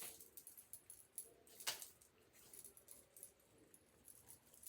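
Near silence with a few faint, sharp clicks, the clearest about one and a half seconds in.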